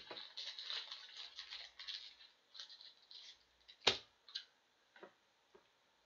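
Rustling as trading cards and plastic card sleeves are handled for about two seconds. Then one sharp click about four seconds in, followed by a few lighter taps.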